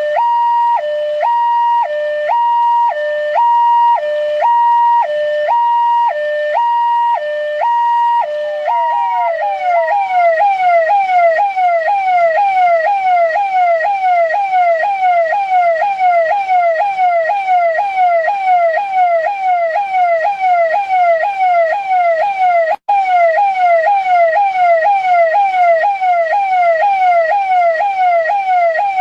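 Indian police siren, electronic, alternating between a high and a low tone about once a second. About nine seconds in it switches to a fast yelp of quick falling sweeps, about three a second, which cuts out for an instant about 23 seconds in.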